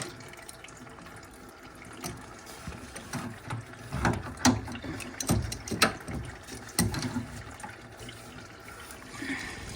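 Water running and dripping out of a boiler pump union that was undone before the system was fully drained, with metallic clicks and knocks of a spanner working the union nut off from about four seconds in.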